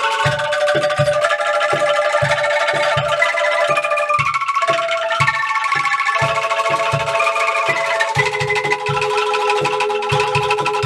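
Angklung ensemble playing: bamboo angklungs shaken in a rattling tremolo, holding melody and chord notes that change every second or so, over a steady low beat.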